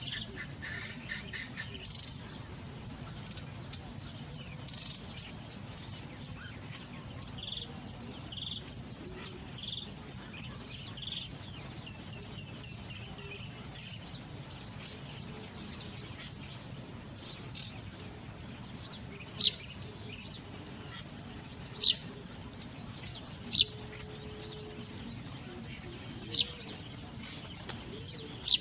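Wild birds calling. Soft high chirps come first, then a run of short, sharp, loud calls in the second half, repeated every two to three seconds, over a steady low background hum of the outdoors.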